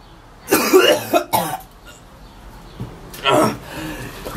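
A young man coughing and gagging on a revolting smoothie, in three short, harsh bursts: about half a second in, around a second and a half, and again past three seconds.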